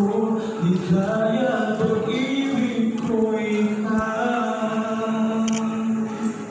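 Singing in long, held, chant-like notes.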